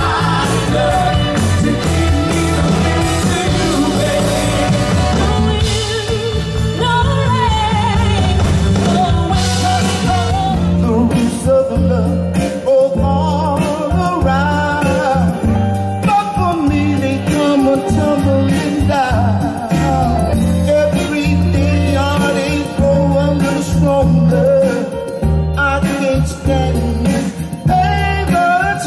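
Live soul band playing a Motown song, with sung vocals over bass, drums and guitar.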